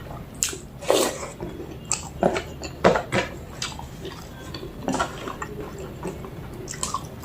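Close-miked eating of mutton curry and rice: irregular wet smacks and clicks from chewing and handling the food, one or two a second.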